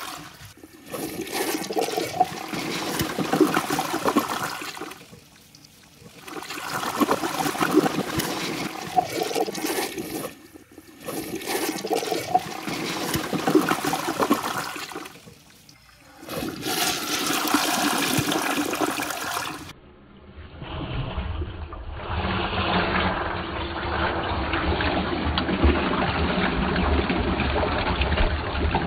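A flush toilet flushed five times in succession: each flush is a rush of water swirling down the bowl, with a short break between flushes. The last flush sounds duller, with more low rumble.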